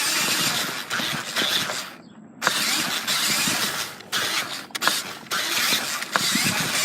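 Electric RC car driving with the camera mounted on it: stretches of loud, rough running noise from the motor and tyres on the ground, broken by a brief pause about two seconds in, with several sharp knocks in the second half.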